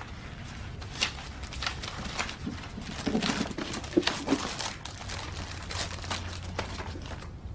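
Papers and envelopes being rifled through by hand: irregular rustling and crinkling of paper.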